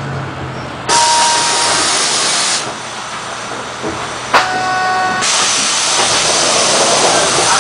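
Compressed air hissing out of a city bus's pneumatic system in two long bursts, with a sharp click and a brief ringing tone between them.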